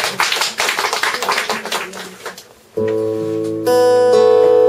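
A small audience clapping briefly, fading out after about two seconds. Then a keyboard chord comes in and is held steady, and acoustic guitars join with a strum about a second later, starting an instrumental piece.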